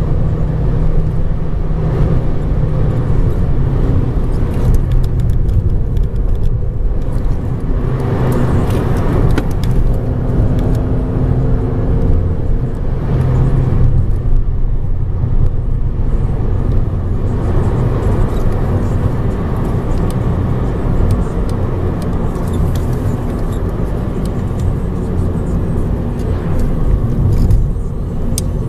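Ford Focus Mk2's 1.6-litre, 100 hp four-cylinder engine running while the car drives, heard from inside the cabin together with road and tyre noise. The engine note changes pitch several times, around gear changes.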